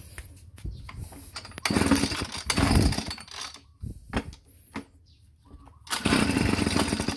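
Pull-start attempts on a Hitachi RB24EAP 24cc two-stroke leaf blower: two pulls of the recoil starter, each cranking the engine in a loud burst about a second and a half long, with a few clicks between them. The starter is stiff to pull.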